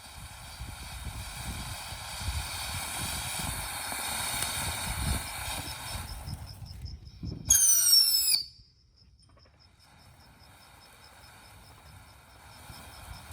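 Phantom Fireworks Tijuana Tremor fountain spraying with a steady hiss and crackle, ending about eight seconds in with a loud shrill whistle that sweeps upward several times in under a second, then cutting off suddenly. Afterwards faint insects chirp in a steady pulse.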